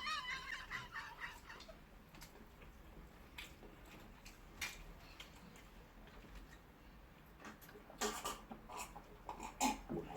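A brief high-pitched wavering vocal sound at the start. Then faint scattered clicks of spoons against plates while people eat.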